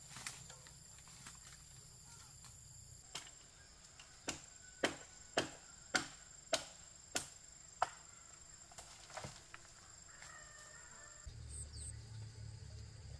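Bamboo being chopped with a blade: about seven sharp strokes, roughly two a second, in the middle of the stretch, over a steady high trill of insects.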